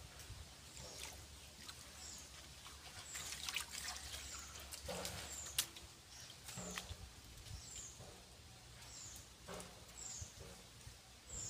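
Faint splashing and squelching of hands groping in a shallow muddy pool, with a few sharper splashes. A high, short, falling chirp repeats about once a second in the background.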